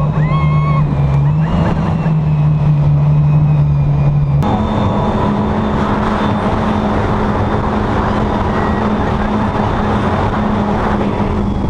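Speedboat's 496 big-block V8 running at high speed, a steady engine drone over the rush of wind and water. The engine note jumps abruptly higher about four seconds in.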